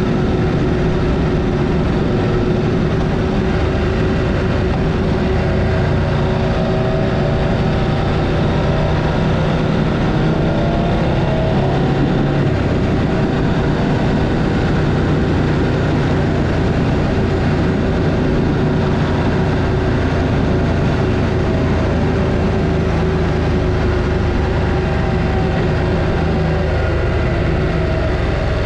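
Adventure motorcycle engine running steadily under way, over a constant haze of wind and road noise. The engine note shifts about twelve seconds in.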